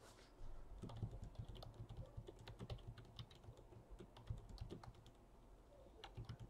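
Faint, quick clicks of a computer keyboard being typed on, in irregular runs that thin out near the end.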